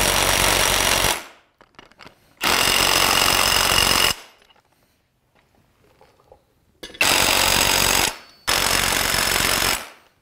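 Cordless impact wrench hammering in four bursts of a second or two each, running down the bolts on a suspension control arm.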